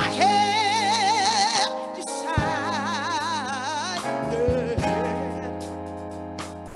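A woman singing gospel, holding two long high notes with wide vibrato, the second after a short break, then lower, shorter phrases near the end. Keyboard and bass guitar play held chords under her.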